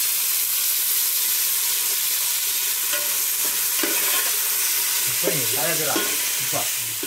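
Freshly added sliced onions and green chillies sizzling steadily in hot oil in an aluminium pot while they are stirred.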